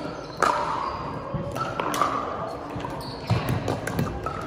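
Scattered sharp pops of pickleball paddles hitting balls and balls bouncing on a hardwood gym floor, echoing in a large hall, with voices in the background. The loudest pop is about half a second in.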